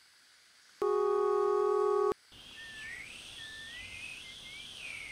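A steady electronic beep tone lasting about a second and a half, cut off sharply. After a short pause it gives way to a thin, high electronic warble that slides up and down in pitch.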